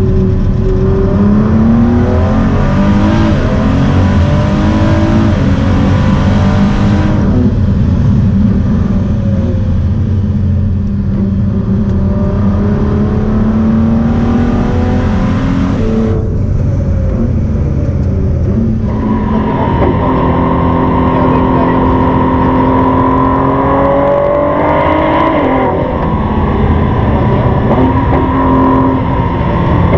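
Ford GT's twin-turbo V6 heard from inside the cabin at full track pace, its pitch climbing under hard acceleration and dropping back several times through the gears. A rushing hiss rides over two of the hardest pulls, and the engine runs steadier near the end.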